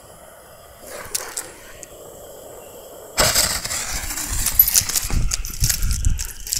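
Fuse of a consumer firework canister shell (gold willow) catching about three seconds in and burning with a loud, crackling hiss as it sprays sparks, before the shell lifts off.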